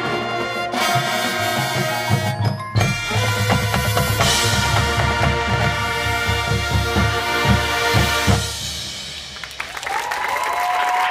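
Marching band playing: brass and woodwinds hold chords over drumline and bass drum hits, with mallet percussion. The music ends on a final chord about eight seconds in and fades out. Applause and cheering from the crowd start near the end.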